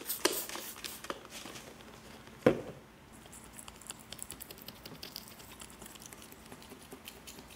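A trigger-spray bottle of window cleaner squirts a few times onto windshield glass, and a single knock follows about two and a half seconds in. Then a razor blade scrapes packing-tape residue off the wet glass in quick, light scratches.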